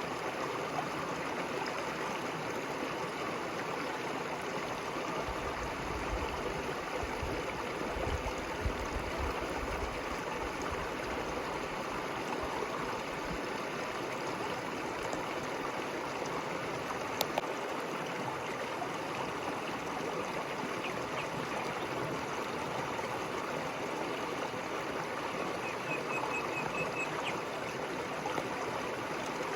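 River water rushing and babbling steadily over stones. A faint low rumble comes in for a few seconds about a third of the way in.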